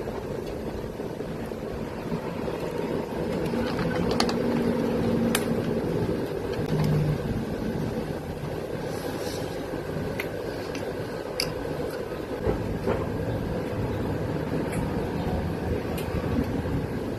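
Steady background rumble with a few short, sharp clicks scattered through it.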